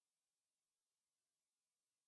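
Silence: a digital pause between spoken passages of an audiobook reading.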